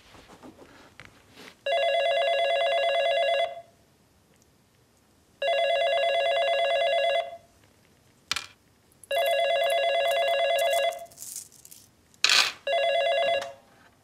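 Telephone ringing: three full rings of about two seconds each, with a last, shorter ring near the end. A click sounds between the second and third rings, and a sharp knock comes just before the last ring.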